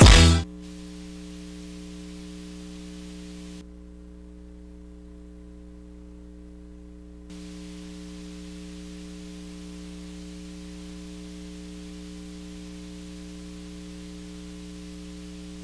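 Music cuts off in the first half second, leaving a steady electrical mains hum with a faint hiss on the audio line. The hiss drops away for a few seconds in the middle while the hum carries on.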